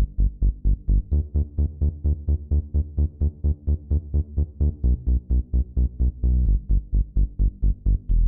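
Electronic dance music with a fast, steady pulsing bass beat, about four to five pulses a second.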